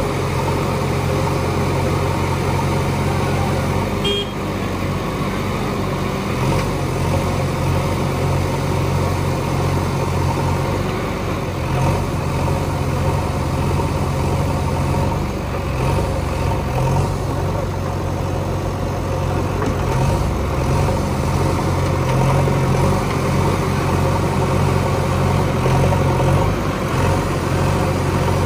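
Heavy diesel engine running steadily at low, near-idle speed, with small rises and falls in pitch and a brief dip in level about four seconds in.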